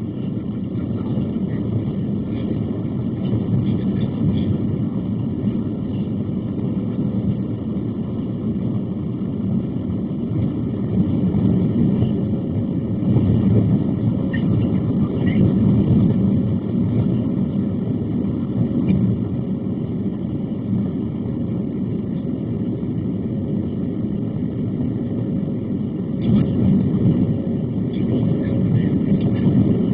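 Steady cabin roar of a Boeing 737-700 climbing after takeoff: its CFM56 jet engines and the rush of air along the fuselage, heard from inside the passenger cabin, deep and even with slight swells in loudness.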